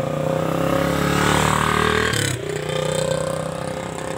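Small motorcycle engines passing close: one grows louder and drops in pitch as it goes by a little past two seconds in, and another keeps running after it.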